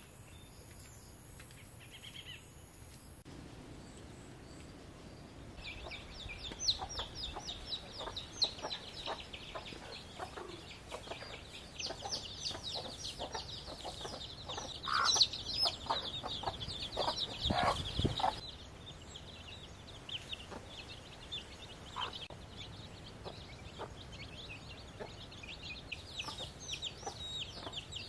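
Chickens clucking and chirping: short, rapid calls that start after a quiet few seconds, are busiest in the middle and thin out toward the end, with a dull thump about two-thirds through.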